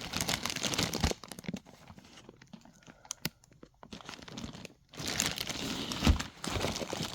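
Packaging crinkling and rustling as the parts of a natural-gas conversion kit are handled, with a few clicks. It is busy for about the first second, mostly quiet in the middle, and crinkling again near the end.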